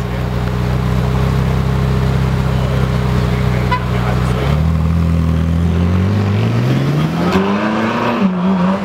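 Ferrari 458 Spider's 4.5-litre V8 idling steadily, then pulling away about four and a half seconds in, its note rising gradually as it accelerates, with a short dip in pitch near the end.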